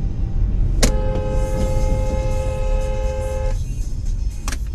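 A car horn sounds one steady blast of about two and a half seconds, starting and stopping sharply, over the low rumble of a car driving. A sharp click comes near the end.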